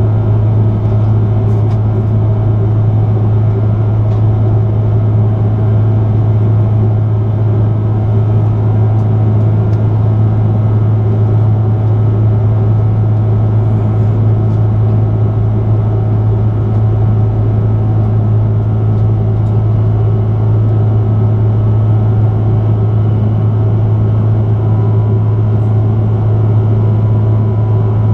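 Airbus A330-300 cabin noise heard at a window seat in flight: the steady, loud drone of its Rolls-Royce Trent 700 engines and the airflow, dominated by a deep constant hum.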